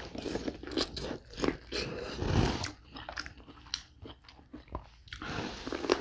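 A person biting and chewing corn on the cob, a run of crisp crunches as the kernels are bitten off the cob. The crunches thin out in the middle and pick up again near the end.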